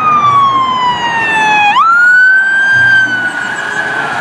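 Police car siren wailing: the tone slides slowly down, sweeps sharply back up just under two seconds in, then holds high and begins another slow fall.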